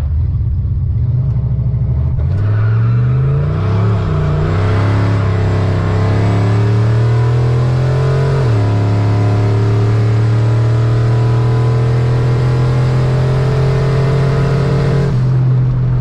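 Drag car engine at full throttle accelerating down the strip: the engine note climbs from about two seconds in, drops sharply at a gear shift about eight and a half seconds in, then holds steady and high before easing off near the end.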